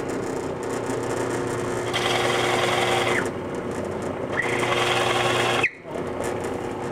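Benchtop drill press running with a steady motor hum while its bit bores into laminated hardwood twice. Each bore is a hissing cut of about a second that falls in pitch as it ends.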